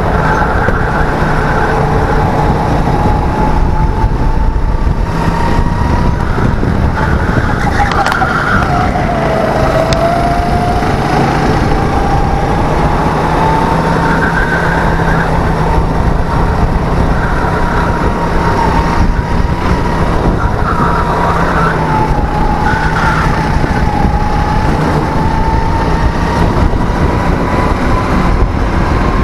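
Birel N35 kart engine running hard from on board, its pitch dipping as it slows for a corner about ten seconds in and climbing again as it accelerates, with a jolt from hitting a kerb partway through.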